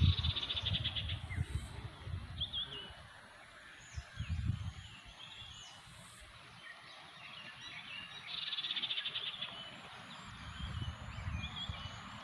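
Birds calling, with a rapid high trill near the start and again about eight seconds in, over intermittent low rumbling bumps on the microphone.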